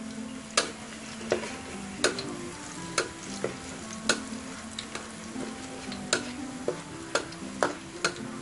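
Minced garlic sizzling gently in oil in an iron wok over low heat, while a metal ladle scrapes the pan and knocks against it about once or twice a second.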